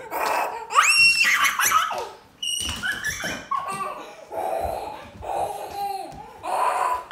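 Laughter and a young child's high-pitched squeals and shrieks, in short bursts, the sharpest squeal rising steeply about a second in.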